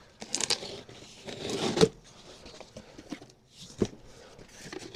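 Handling noise from unpacking: rustling and scraping of packaging that builds to a sharp knock just under two seconds in, with a few scattered clicks and another knock near four seconds.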